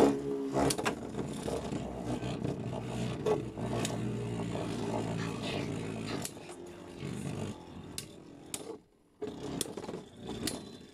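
Two Beyblade Burst spinning tops, Vanish Fafnir against an opponent, whirring as their tips run across a clear plastic stadium floor, with sharp clacks as they collide. The whir fades after about six seconds as the tops lose spin.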